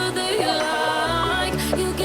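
Background pop music with a sung melody; a bass line comes in about a second in.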